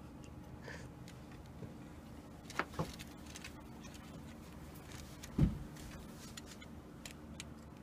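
Small, irregular clicks and taps of alarm-clock parts being handled and turned, with two sharper clicks near the three-second mark and a louder knock about five and a half seconds in, over a faint steady hum.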